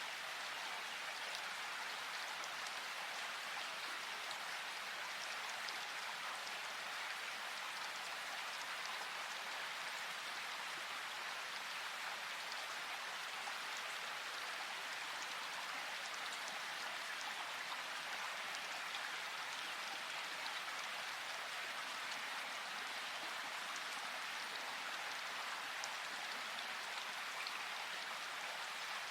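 Steady rain falling on a forest, an even hiss with scattered raindrop ticks.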